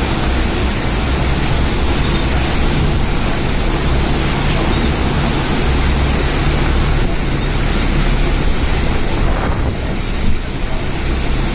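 Steady rush of a heavy downpour, with wind buffeting the microphone in a low rumble.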